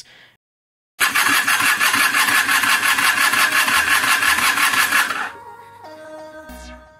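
Electric starter motor of a 1979 Honda CB250N Superdream engine, powered straight from a jump lead, spinning for about four seconds with a steady whine, then cutting off. Background music with stepping notes follows.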